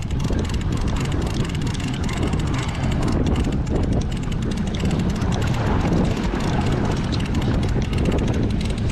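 Outboard motor running steadily at trolling speed, with wind on the microphone and water churning in the wake.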